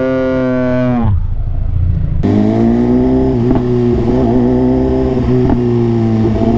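BMW S 1000 RR superbike's inline-four engine running under way in traffic, holding a fairly steady note. The note drops away briefly about a second in, then comes back steady.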